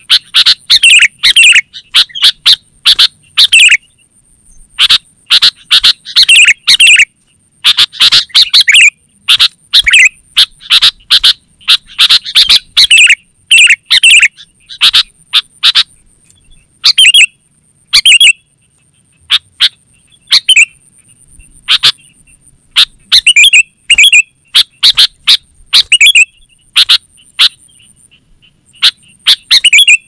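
Sooty-headed bulbul (kutilang) singing vigorously: loud, quick phrases of short chattering notes, one after another with brief gaps between them.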